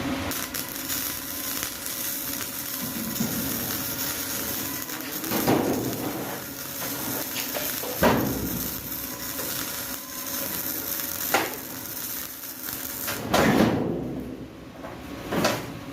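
Metal knocks and clanks on steel: five separate strikes, each with a short ring, over a steady hiss that fades near the end.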